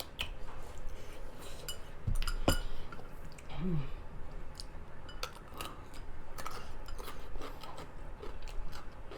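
Close-miked chewing and crunching on crisp cucumber, with scattered small mouth clicks and two louder crunches about two seconds in.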